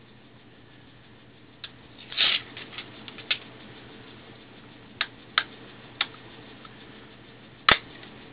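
Snap-on plastic back cover of a Samsung Infuse 4G phone being pried off by hand: a scattered series of sharp clicks and short scrapes as its clips let go, starting about a second and a half in, with the loudest snap near the end.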